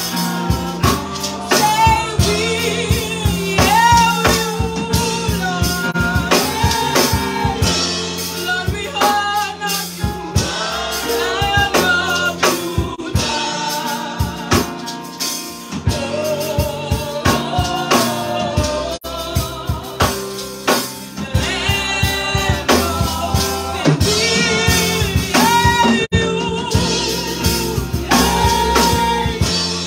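Gospel worship song: a woman's lead vocal through a microphone, with drums and backing music keeping a steady beat.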